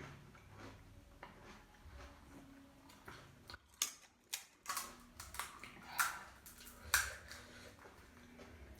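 Close-miked eating: a run of sharp, crisp crunches and chewing sounds starting about halfway through.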